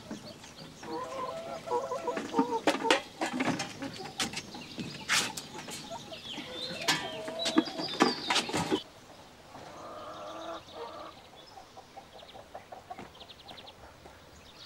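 Caged hens clucking, mixed with sharp knocks and clatters; about nine seconds in, it drops suddenly to a much quieter background.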